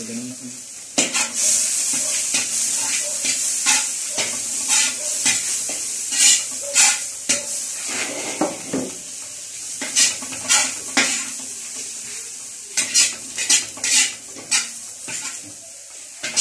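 A metal spatula scraping and knocking against a large wok in irregular strokes while food sizzles in hot oil. The sizzle jumps up sharply about a second in.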